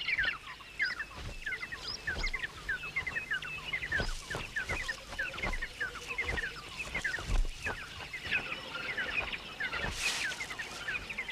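Birds calling: a steady stream of short, downward-sliding chirps, several a second, with scattered sharp clicks.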